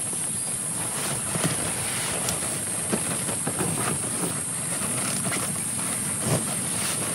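Heavy rain on a tree tent: a steady hiss of rain with irregular louder drops tapping on the tent, the strongest about a second and a half in and just past six seconds in.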